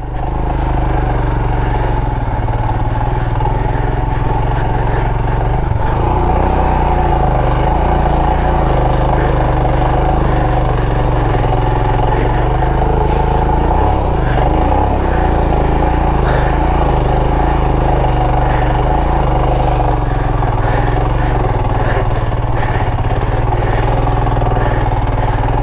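Motorcycle engine running steadily under load while riding through soft sand, which is hard going.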